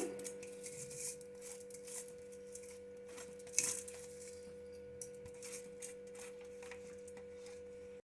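Faint steady hum with a few light clicks and taps, one a little louder about three and a half seconds in.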